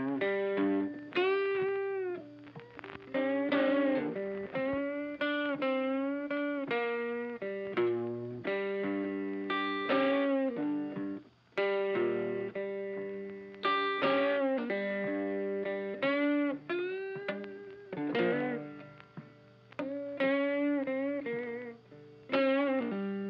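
Background music: a melody of bending, wavering notes over held lower notes.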